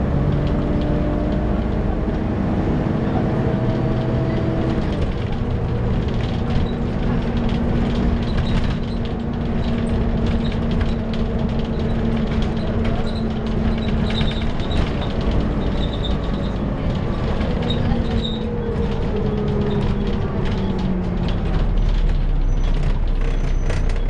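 Volvo B7TL double-decker bus on the move, heard from inside the passenger saloon: engine and cooling-fan drone with the whining "screechy hoover" note. Its pitch drops about five seconds in and slides down again later on as the bus changes speed.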